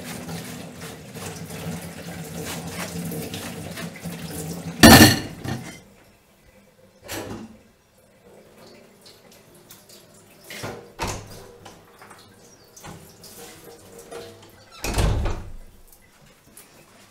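Kitchen tap running into a stainless steel sink while a metal box grater is rinsed, ending in a loud clatter about five seconds in. After that it is much quieter, with a few scattered knocks and a heavier thump near the end.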